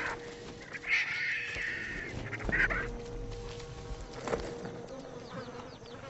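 Vultures squabbling at a carcass: harsh, squealing calls, loudest about a second in and again a little later, with a few sharp knocks and scuffles among them.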